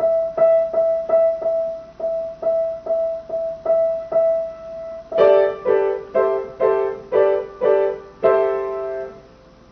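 Grand piano: one high note struck over and over, about three times a second. About five seconds in, lower notes join and the chord is repeated at the same pace, the last one ringing out before stopping near the end.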